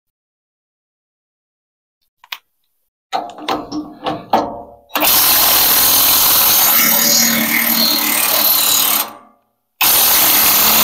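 Cordless impact wrench hammering at a sawmill track-wheel bolt to loosen it: a few short bursts, then a long run of about four seconds, a brief stop, and another run near the end.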